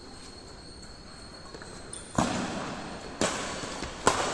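Badminton racquets hitting a shuttlecock three times, about a second apart, starting about two seconds in; each sharp hit rings out in the echo of a large hall.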